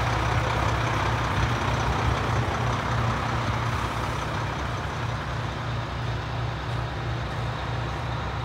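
Freightliner FL80 truck's diesel engine idling steadily, a low even throb, growing slightly fainter partway through.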